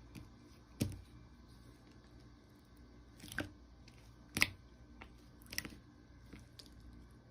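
A few separate sharp clicks like keys being tapped, spaced about a second apart, over faint room tone.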